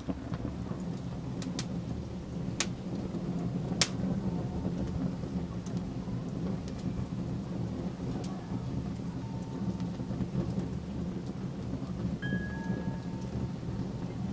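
Wood fire burning beside the pot: a steady low rumble with a few sharp crackling pops in the first four seconds.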